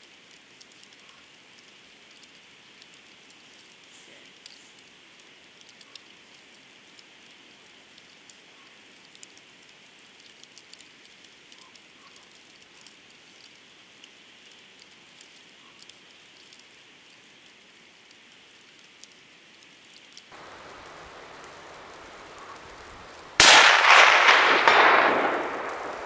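A single shot from a suppressor-fitted Remington 700 rifle in .308 Winchester, fired near the end: one sharp crack followed by a rolling echo that fades over about two seconds. Before it, only a faint steady hiss with small ticks.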